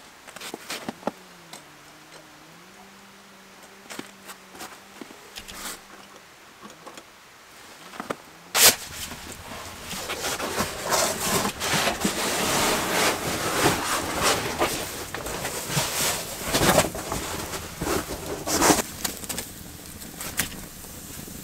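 Quiet handling sounds with a few faint clicks, then one sharp knock about eight seconds in. After that a wood fire crackles in the hearth, with frequent sharp pops and knocks.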